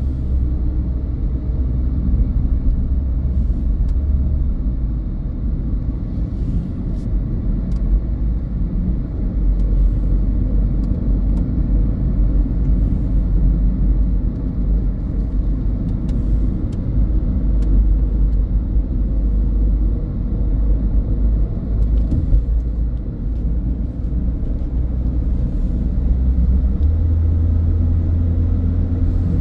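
Car on the move: a steady low rumble of engine and tyre noise, with a low hum that steps up in pitch near the end.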